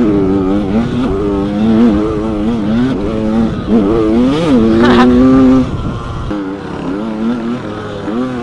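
Suzuki RM 80/85 two-stroke motocross engine under way, its pitch rising and falling with the throttle. About four and a half seconds in it revs up sharply and falls back, and from about six seconds in it runs quieter on a lighter throttle.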